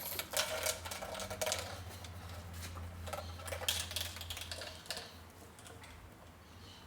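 A quick run of small clicks and rattles from the Western 4.5 air gun being handled and readied between shots. The clicking dies away about five seconds in, leaving a faint steady hum.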